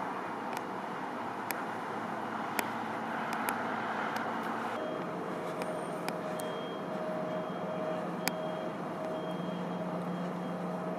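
Steady road traffic noise from vehicles on a highway, with a steady hum that grows stronger about halfway through and a few sharp clicks.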